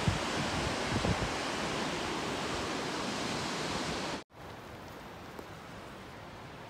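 Steady rushing outdoor wind noise, with wind buffeting the microphone in low thumps around the first second. It cuts off abruptly about four seconds in, leaving a quieter, even hiss.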